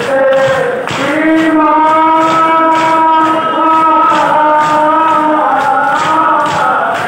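Men's voices chanting a marsiya lament in long held notes, over a steady rhythm of hands striking chests in matam from a large crowd.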